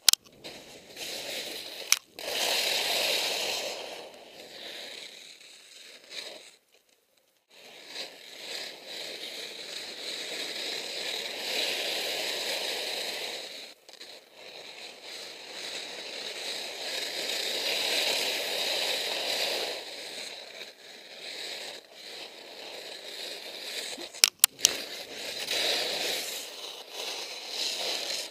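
Skis scraping and sliding over firm snow on a steep slope, in long swells of a few seconds each with a short break about a quarter of the way in. A few sharp clicks come near the start and again near the end.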